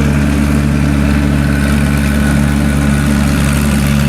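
Rice combine harvester's engine and threshing machinery running steadily, a constant low hum with no change in pitch.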